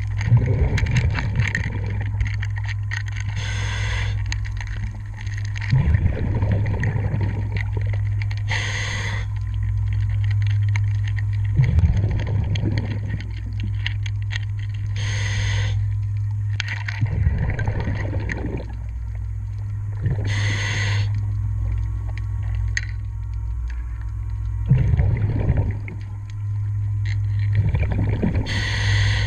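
Diver breathing through an underwater regulator: a short hiss on each inhalation, then a burst of bubbling on each exhalation, repeating about every five to six seconds over a steady low hum.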